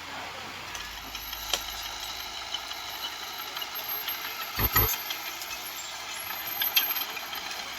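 Heavy diesel machinery running at a work site, with scattered metallic clicks and knocks and one strong low thump about halfway through.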